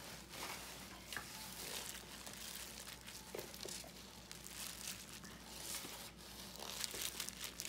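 Faint crinkling and rustling, with scattered small ticks, from something being handled close by.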